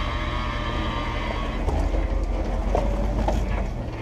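Jeep Wrangler TJ engine running at a slow crawl as the Jeep picks its way down a rocky trail, with tyres grinding over rocks and a few short creaks about halfway through and near the end.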